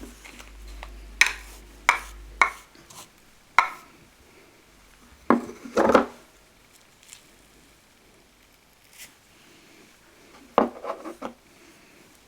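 Scattered sharp knocks and clatters of a ceramic shaving mug and shaving brush being handled: a few single knocks, then two short clusters of clatter.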